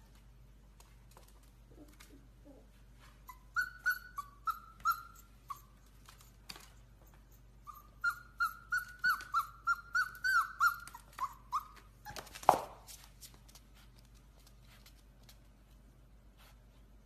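A puppy whining in short high yelps: a few at first, then a longer run of about two a second, ending with one louder yelp. Faint clicks run throughout.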